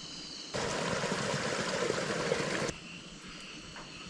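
A steady rushing noise, like flowing water, lasting about two seconds and cutting in and out abruptly.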